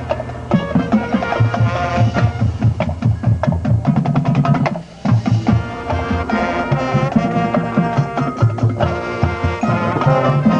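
Band music with drums and percussion to the fore, playing a steady rhythm over pitched instruments; it drops out briefly about five seconds in.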